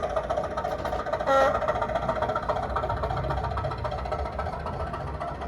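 Recorded Class 205 'Thumper' diesel engine sound from the model's LokSound decoder, played through its small speaker and running steadily. A short horn blast comes about a second in.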